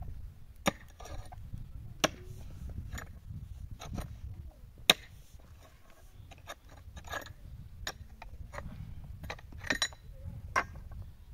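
Irregular sharp knocks and clinks of hand tools striking stone while a stone wall is built up, about one every second or so, the loudest about five seconds in, over a steady low rumble.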